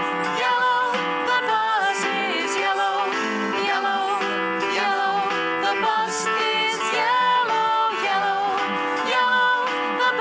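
Background music: a bright, steady tune with plucked guitar and a moving melody line.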